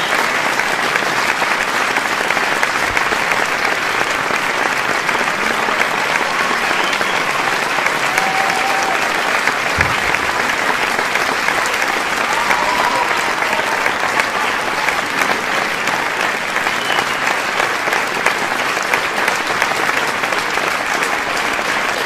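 A large crowd applauding steadily, with scattered shouts and cheers from the audience rising above the clapping now and then.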